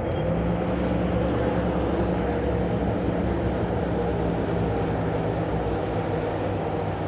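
A steady, low engine drone with a constant pitch.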